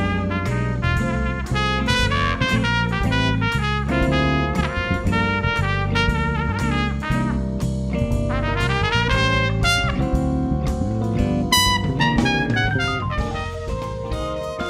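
Jazz-blues band playing an instrumental passage, a trumpet carrying the lead in quick runs of notes over the rhythm section and drum kit.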